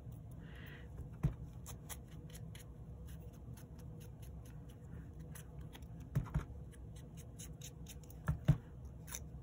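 Small cardstock pieces handled on a craft cutting mat: light paper rustling with a few sharp taps, the loudest pair near the end, over a steady low hum.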